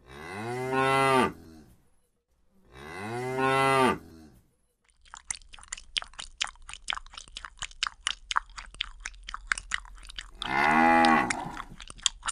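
Cow mooing twice in quick succession, then several seconds of rapid, crunchy chewing as of cattle eating dry feed, then one more moo near the end.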